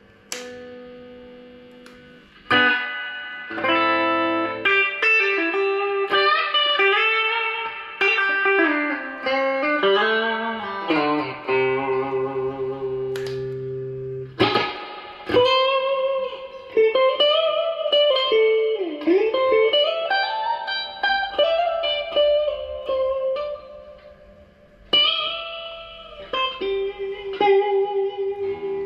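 Fujigen J-Standard Mustang electric guitar played through an amplifier: picked single-note lead lines with string bends and vibrato, mixed with a few chords. There is a short pause about three-quarters of the way through before the playing starts again.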